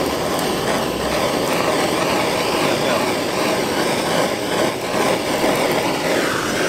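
Handheld gas blowtorch burning with a steady roar of flame, aimed at a cube of beef on a wire grill rack.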